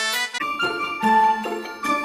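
Background music: a track with a steady beat breaks off about half a second in, and a light tune of separate pitched notes takes over.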